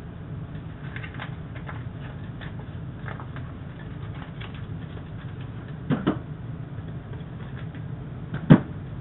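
Butter crackling in a hot wok, scattered small pops over a steady low hum, with two sharper knocks about six and eight and a half seconds in, the second the louder.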